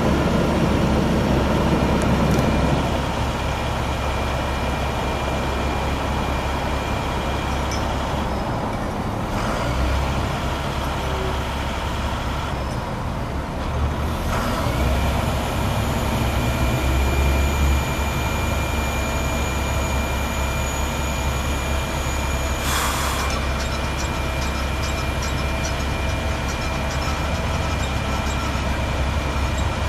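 International DT466 six-cylinder diesel engine running steadily on the parked bucket truck while its Altec hydraulic aerial boom is lowered, with a steady high tone joining about halfway through. A short hiss comes about three-quarters of the way in.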